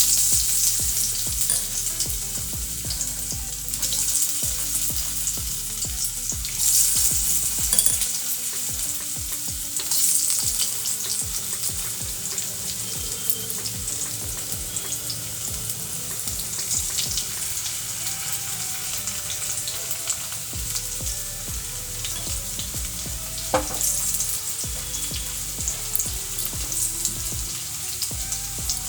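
Cut potatoes sizzling in hot mustard oil tempered with nigella seeds in a pan. A loud sizzle breaks out suddenly at the start and carries on steadily, with several louder surges.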